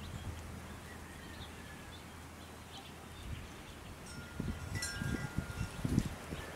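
Wind chime ringing a few clear metallic notes from about four seconds in, over a light breeze.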